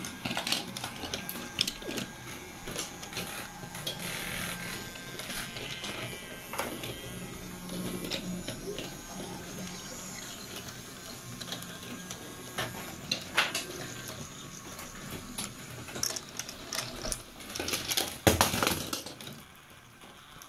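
Battery-powered Brio toy trains running on wooden track: a steady small-motor hum with wheels clicking and knocking on the wooden rails, and a louder burst of clatter about 18 seconds in.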